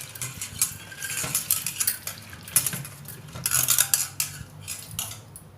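A metal vessel and utensils clinking and scraping in irregular clatters as toor dal is stirred and washed in it.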